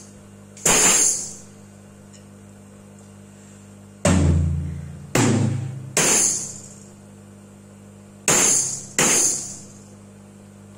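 Drum kit struck with six separate hits spaced out over several seconds, each with a bright jingling ring from a tambourine laid on the snare and dying away; the hit about four seconds in has a deep boom under it. A faint low hum sits between the hits.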